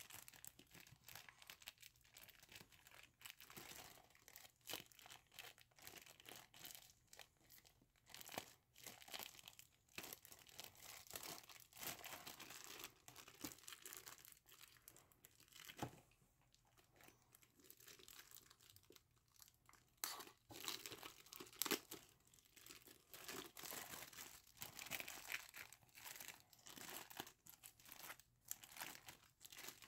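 Clear plastic bag crinkling and rustling as it is handled and pulled off an audio interface. The crackles come in irregular bouts, loudest about 20 and 22 seconds in.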